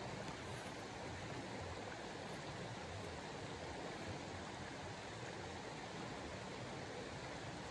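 Steady, even rushing noise of outdoor ambience, with no distinct events.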